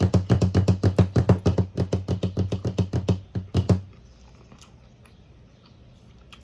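Close-miked eating sounds: rapid crunching and mouth clicks from chewing a fried fish sandwich, stopping about four seconds in.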